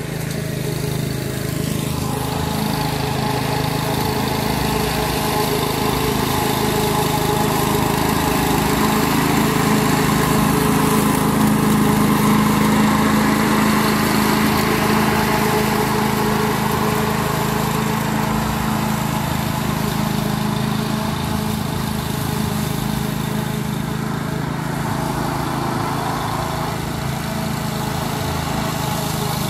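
Duricut 820 walk-behind lawn mower's 159cc four-stroke engine running steadily under load as it cuts grass, a continuous even drone.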